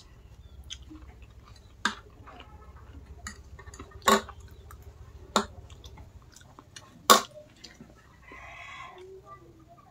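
Eating at a table: a metal fork clinks and scrapes on a ceramic plate of noodles, with quiet chewing between. There are four sharp clinks, the loudest about seven seconds in, and a brief rustling noise near the end.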